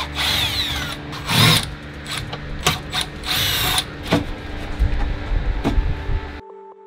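A power tool whirring in short bursts that speed up and slow down, with sharp clicks and knocks of work on a boat's steering helm over a steady low hum. It cuts off abruptly near the end, giving way to soft music.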